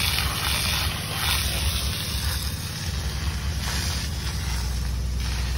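Fire hose jet hissing as water sprays onto a smouldering tree stump, over a steady low rumble.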